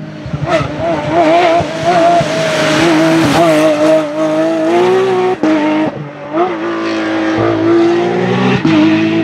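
Porsche 997 GT3 rally car's 3.6-litre flat-six running hard at high revs, its pitch wavering and climbing as the throttle is worked through a gravel corner. It breaks off sharply a few times, the brief cuts of gearshifts on the sequential box.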